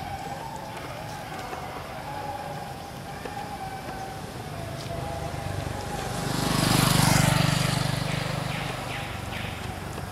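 A motor vehicle passing by: its engine hum and road noise swell up from about six seconds in, peak about a second later, and fade away.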